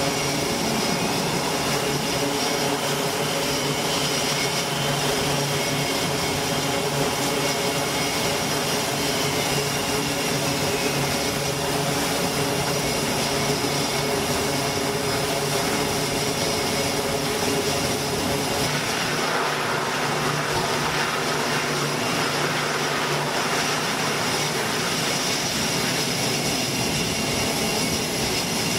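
Twin turboprop engines of a Grumman E-2 Hawkeye running steadily, a loud propeller drone with a whine on top, as it taxis to the catapult and launches from the carrier deck. The tone changes about two-thirds of the way through.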